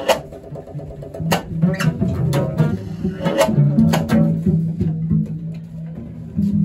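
Free-improvised music: contrabass and cello playing low bowed and plucked notes, with several sharp struck accents on top, around the start, at about a second and a half, and twice more between three and four seconds in.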